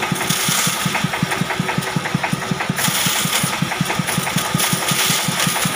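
Band saw running with an even rhythmic thumping, about eight beats a second. Three times a workpiece is pushed through the blade, each cut a short rushing noise of the blade going through wood: about a second in, at the middle and near the end.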